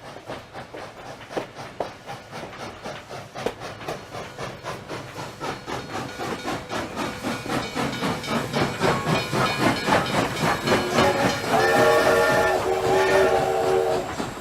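Steam locomotive approaching, its rapid, even chuffing growing steadily louder, then two long blasts of its chord whistle near the end.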